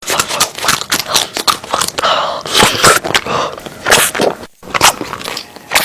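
Close-miked eating sounds: a rapid, irregular run of crunchy bites and wet chewing clicks.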